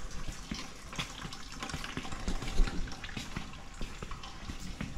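Footsteps and camera handling: scattered soft taps and rustles over a low hiss, with one sharper tap a little past the middle.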